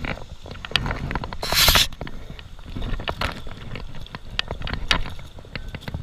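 A hooked trout splashing at the water's surface, loudest about one and a half seconds in, among scattered clicks and knocks from handling the rod and camera, over a low rumble.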